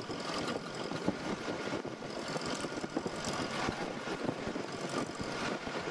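Steady engine and road noise from inside a moving vehicle, heard as a constant rushing drone.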